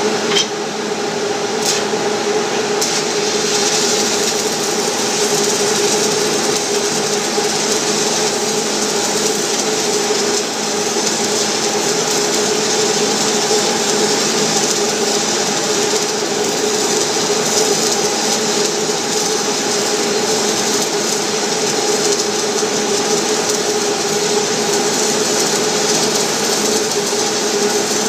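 A stick welding arc crackling steadily as a 6010 electrode runs a bead on mild steel, over a steady hum. A few sharp clicks come in the first couple of seconds as the arc gets going.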